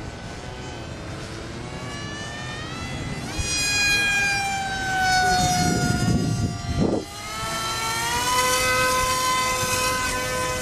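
Radio-controlled model airplane motors whining. One model passes with its pitch slowly falling. After a break about seven seconds in, a steady high whine comes from the motor of a model jet being hand-launched.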